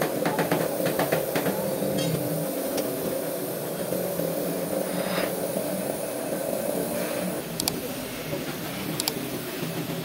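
Compressed-air paint spray gun hissing steadily as it sprays paint onto a car body panel, over a steady low mechanical hum, with a few light clicks.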